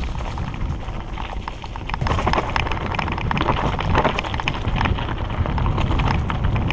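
Hardtail mountain bike riding fast over dirt single track: wind rushing over the microphone as a steady low rumble, with the tyres on dirt and leaves and a constant run of sharp rattles and clicks as the bike jolts over bumps.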